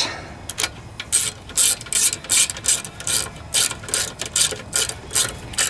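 Socket ratchet wrench clicking in quick back-and-forth strokes, about three clicks a second, as it turns a 3/8-inch carburetor mounting bolt on a Briggs and Stratton lawnmower engine.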